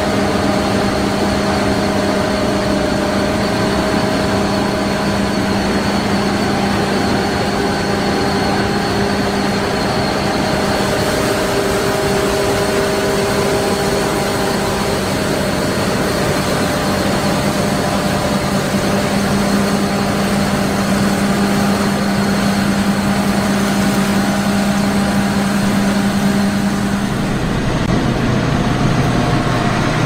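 Vishal 435 combine harvester running steadily while cutting wheat: a constant engine drone over the clatter of its working machinery, with a thin high whine. The engine note shifts a few seconds before the end.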